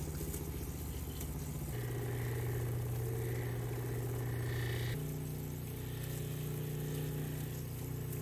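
Cabbing machine motor spinning a felt polishing pad as an opal is polished with cerium oxide: a steady hum that drops in pitch about two seconds in and rises again about five seconds in.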